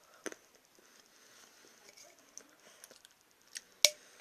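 Easter chocolates being handled and unwrapped: scattered soft clicks and crackles, with a sharp snap about a quarter second in and a louder one near the end.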